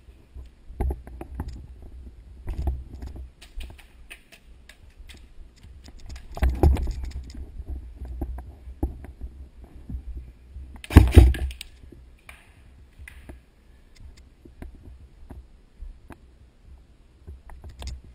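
Handling noise of a player's gear and airsoft rifle rubbing and knocking against a body-worn camera: uneven rattles and clicks over a deep rumble. The loudest clusters come about seven and eleven seconds in.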